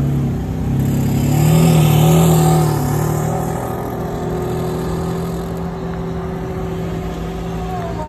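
Ferrari Enzo's V12 engine pulling away: the revs rise and it is loudest about two seconds in, then the note settles steadier and a little quieter as the car drives off.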